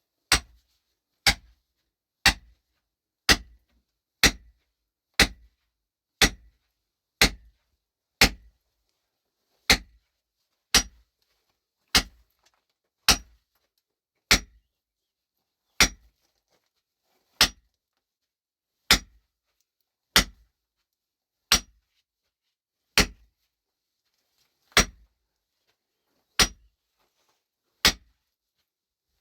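A hand tool striking hard material in a steady rhythm, one sharp blow about every second. The blows slow to about one every second and a half in the second half.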